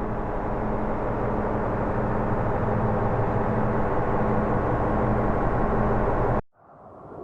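Zeppelin engine sound effect: a steady, droning engine hum over rushing noise that cuts off abruptly about six and a half seconds in, after which another sound begins to fade in.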